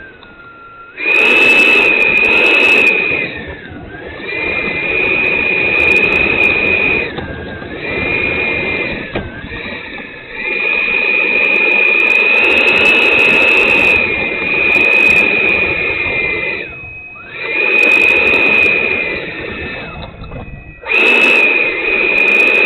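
Electric ducted fans of a Freewing F-15 RC jet (90 mm EDF) whining at taxi power, heard close from a camera on the model's airframe. The throttle is blipped over and over: the whine comes on sharply, holds steady, then sags with a falling pitch several times.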